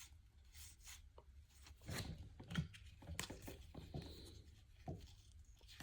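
Faint rustling and light clicks of baseball trading cards being handled and slid through the hands.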